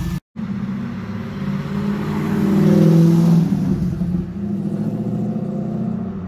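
C5 Corvette Z06's LS6 V8 accelerating away down the street, its engine note rising in pitch and getting louder to a peak about halfway, then running on steadily as the car pulls into the distance.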